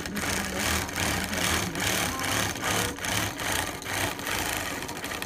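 Longarm quilting machine running and stitching through layered fabric and batting, a steady mechanical whir with a regular pulse about three times a second.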